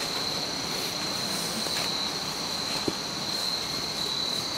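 A steady high-pitched chorus of night insects such as crickets, trilling without a break. A single brief click sounds about three seconds in.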